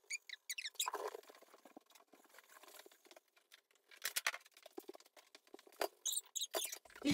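Scattered clicks and knocks from cleanup work in a bare kitchen, with a few short, high squeaks at the start and again about six seconds in.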